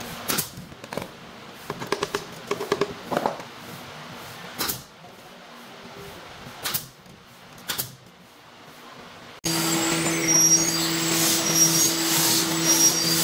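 Nail gun firing sharp shots into wood strips: a quick run of shots, then single shots a second or two apart. About two-thirds of the way in the sound cuts abruptly to a louder steady machine hum with hiss.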